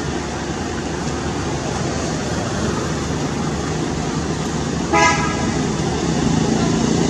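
A single short vehicle horn toot about five seconds in, over a steady outdoor traffic rumble.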